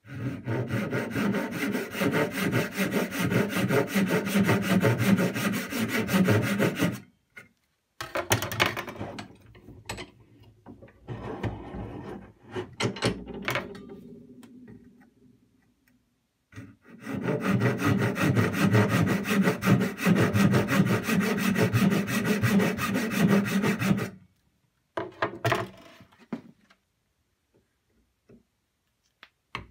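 Backsaw cutting shallow kerfs across the end grain of a birch blank clamped in a vise, in two spells of steady sawing several seconds long with softer handling sounds between. The kerfs form an X for a lathe spur drive to seat in.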